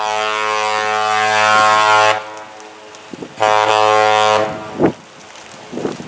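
Lake freighter's deep air horn sounding two blasts, a long one of about two seconds and then, after a pause of a little over a second, a shorter one of about a second.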